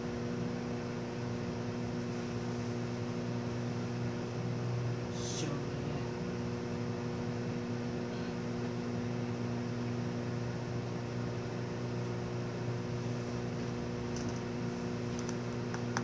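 Microwave oven running with a steady low hum.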